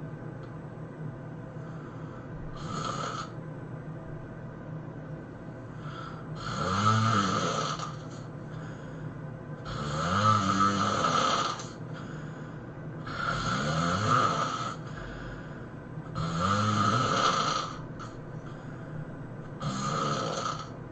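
A person snoring loudly, about one snore every three to four seconds, each rising and then falling in pitch, over a steady low hum between them.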